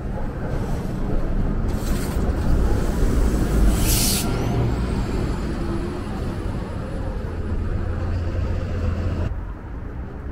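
City transit bus engine running as it pulls along the street, over steady traffic rumble, with a short loud air hiss about four seconds in. The sound drops off near the end.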